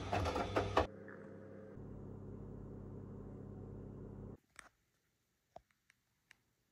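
Front-loading washing machine drum churning and sloshing, with rapid clicks, for about a second before it cuts off. It gives way to a steady low rushing noise until just past halfway, then near silence with a few faint ticks.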